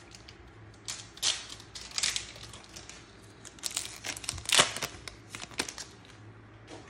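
Foil wrapper of a Pokémon trading-card booster pack being torn open and crinkled by hand, in short irregular crackles.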